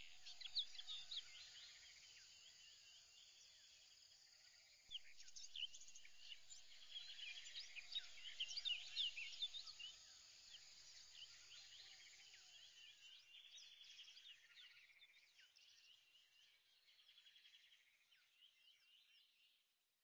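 Faint chorus of birds chirping and trilling, many short high calls overlapping, growing louder about five seconds in and fading away near the end.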